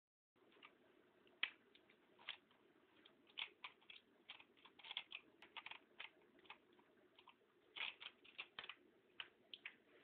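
Clicky Cherry MX Blue mechanical keyboard keys pressed at random by a baby's hands, giving faint scattered sharp clicks in irregular clusters with short gaps between.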